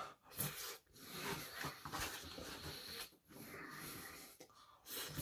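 A man eating vermicelli noodles from a foam takeout box: chewing a mouthful and breathing hard through his nose between bites, with a few small clicks from a plastic fork.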